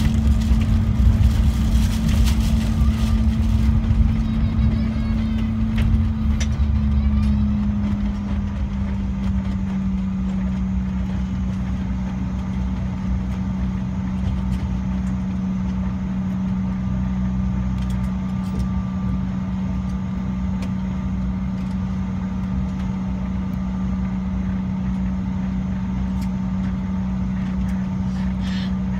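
Cabin noise of a Bombardier CRJ1000 rolling out on the runway after landing: the rear-mounted turbofan engines' steady drone over a deep rumble. Both are louder for the first several seconds, then the engine tone drops slightly in pitch and the noise settles as the aircraft slows.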